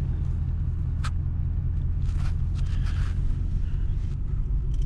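A steady low rumble with a few faint clicks and crunches over it, one sharper click about a second in.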